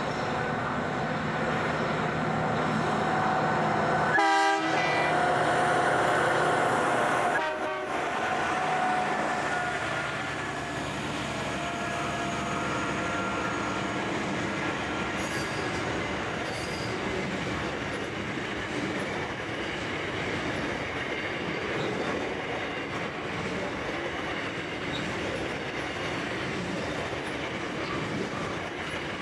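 Diesel-hauled freight train passing close by: the locomotives' horn sounds a few seconds in as they come through. After that comes a long, steady rumble and clickety-clack of the wagons rolling past on the track.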